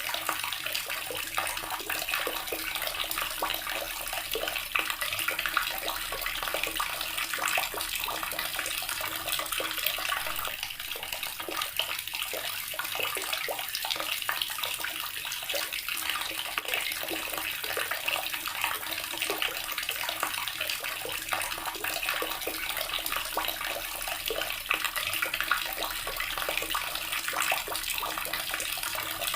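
Water running steadily from a tap, splashing continuously into the basin below.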